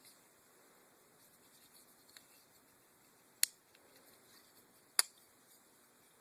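Two sharp metallic clicks about a second and a half apart, after a few faint handling ticks: a Microtech Select Fire folding knife's blade and lock being worked by hand, the action still stiff and new.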